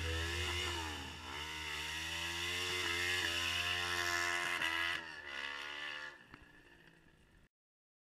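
Honda CB500 motorcycle engine revving hard with the rear wheel spinning in a smoky drift. Its pitch dips about a second in, then climbs slowly. The sound fades out over the last couple of seconds.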